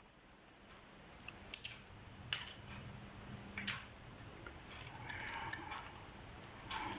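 Small metal parts of a Leatherman Charge TTi multitool clicking and clinking as it is taken apart by hand: several sharp, light ticks spaced irregularly, with a brief soft rustle a little past the middle.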